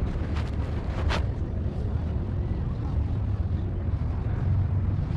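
Wind buffeting the microphone, a steady low rumble, with a brief sharp hiss about a second in.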